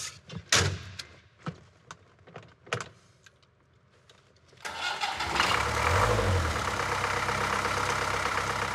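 A few scattered clicks and knocks, then about halfway through the Land Rover's 2.25-litre diesel engine starts up suddenly, swells briefly and settles into a steady idle.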